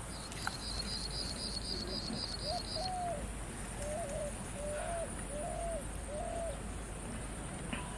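Birds and insects: a rapid run of high chirps, about four a second, for the first three seconds, then a bird calling six short low notes about a second apart, over a steady high insect hiss.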